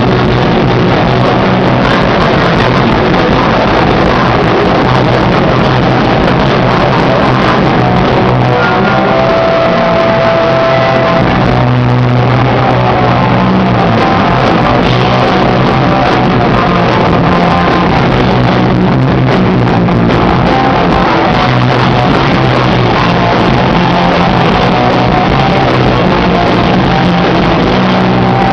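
Live rock band playing loudly.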